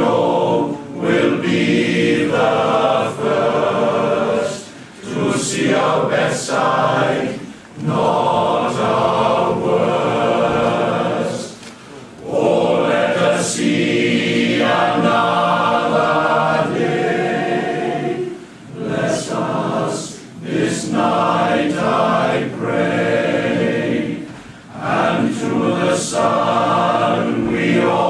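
Welsh male voice choir singing a slow, soft song, its phrases broken by brief pauses for breath.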